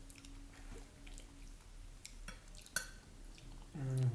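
People eating at a table: chewing and wet mouth sounds with a few sharp clicks, the loudest about three quarters through. A short voiced hum comes just before the end.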